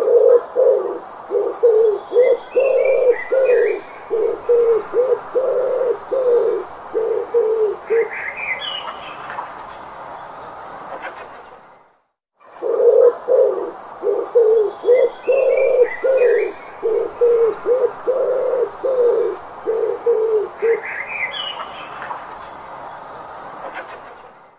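A bird gives a run of low hooting or cooing notes, about fourteen over eight seconds, over an insect's steady high-pitched trill, with a few higher chirps from other birds. The same twelve-second sequence cuts out abruptly and then plays again.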